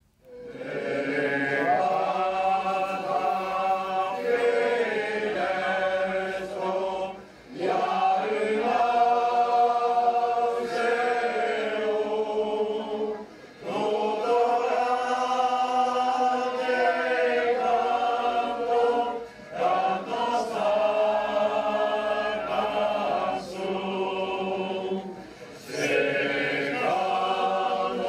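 Background choral music: a choir singing sustained chords in long phrases, with a short break about every six seconds.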